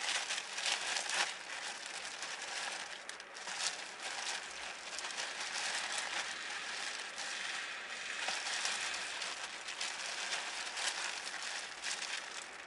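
Continuous crinkling, crackling noise with many small clicks throughout, such as food being unwrapped or handled.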